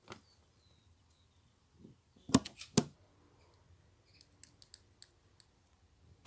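Metal parts of a small hand-cranked drill clicking and knocking together as it is reassembled, with a few sharp knocks a little over two seconds in. Lighter ticks follow as the crank's bevel gear is fitted against the spindle pinion.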